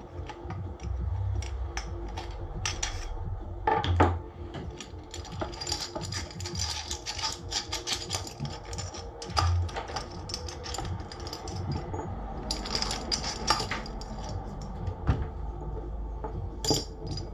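Parts of a Specna Arms E-14 airsoft rifle being handled during disassembly: irregular clicks, knocks and scraping of plastic and metal as the stock and buffer tube are twisted and pulled off, with a few louder knocks.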